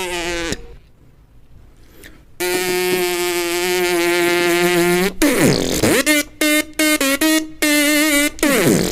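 Cartoon-style sound effects: after a short break comes a long held pitched tone, then a falling swoop, a quick run of short pitched blips, and another downward slide near the end.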